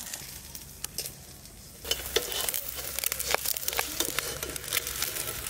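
An egg frying in oil in a metal kadai, with a steel spatula scraping and clicking against the pan. The scraping starts about two seconds in.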